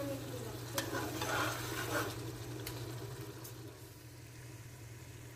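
A steel spatula scraping and stirring spice paste in an aluminium pressure cooker, with a soft sizzle as the masala fries in a little water. A few stirring strokes and a click come in the first two seconds, then only the fainter sizzle.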